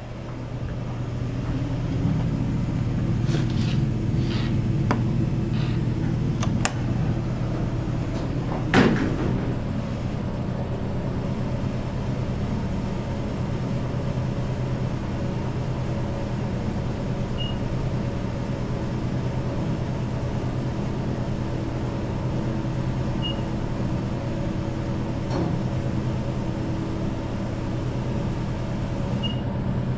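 Otis hydraulic elevator's pump motor starting up and running with a steady low hum as the car rises. A few light clicks come in the first seconds, a sharp knock about nine seconds in, and three faint short high beeps in the second half.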